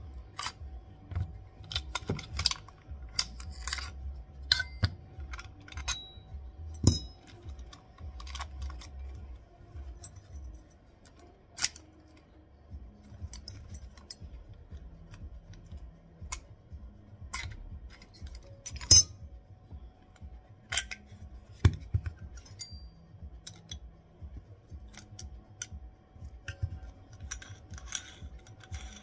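Irregular small metallic clicks, taps and clinks of a Brava Metro lever lockset's parts being handled and taken apart, with a few louder knocks, including one about two-thirds of the way through.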